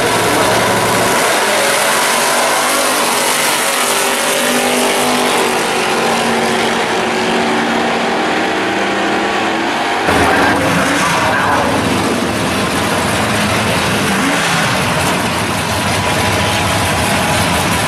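A drag-racing car launching hard from the starting line and running at full throttle down the strip, its engine note climbing as it pulls away. About ten seconds in, other cars' engines run loud and revving at the starting line.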